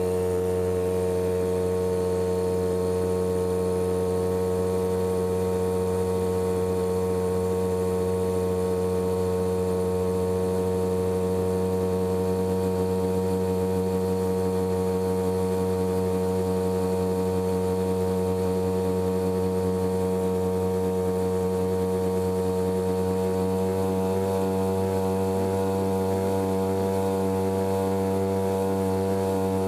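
Small 3 hp outboard motor running steadily under way, pushing a small boat along at cruising speed.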